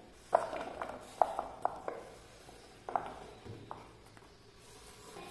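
Raw sweet potato slices tipped off a wooden cutting board into a glass bowl: a scattered run of sharp knocks and light clinks against the glass over the first three seconds or so.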